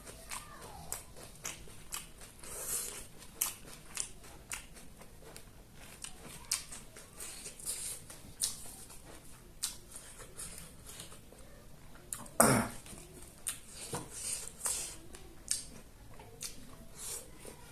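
A person eating close to the microphone: irregular wet chewing, smacking and mouth clicks. One louder knock about twelve seconds in.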